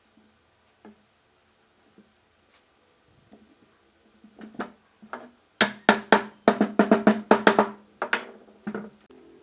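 Sharp knocks on wood, as in hammering: a few scattered light taps, then a quick run of about a dozen ringing blows, roughly five a second, and one last knock just before the end.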